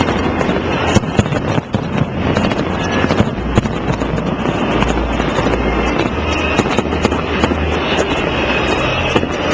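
Fireworks display going off in a dense barrage: many sharp cracks and pops over a continuous low rumble.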